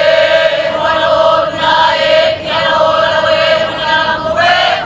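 A group of voices chanting a Hawaiian oli in unison, holding long steady notes with short breaks between phrases.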